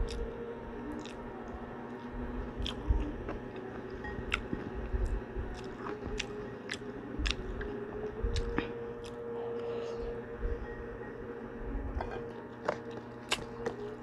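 Crunching and chewing of crispy chicharon (fried pork rinds), with sharp crackling bites coming irregularly throughout.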